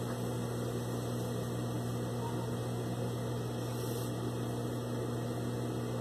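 Steady electric hum of an industrial sewing machine's motor running idle, with no stitching.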